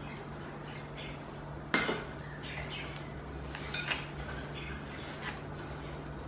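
A wooden spatula knocks once sharply against a glass mixing bowl about two seconds in, followed by softer clinks and scraping as a gloved hand mixes mashed potato dough in the bowl. A low steady hum runs underneath.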